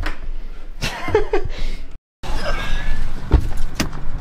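A brief laugh about a second in, then after an abrupt cut, rustling camera-handling noise with several sharp knocks, the loudest about three seconds in.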